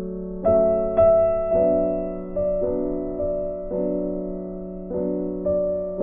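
Background music: a soft piano-style keyboard melody, single notes struck about once a second over a steady held tone.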